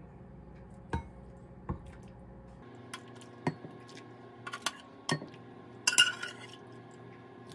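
Stainless steel ladle clinking against a ceramic bowl and pot as stew is served, a scattering of sharp knocks about a second apart. The loudest clinks, with a short ring, come about six seconds in as the pot is tipped over the bowl.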